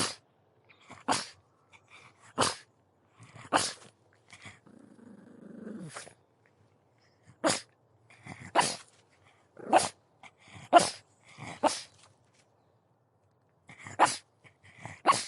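Pug barking in single short, sharp barks, about a dozen at uneven spacing, with a low growl between the barks about five seconds in.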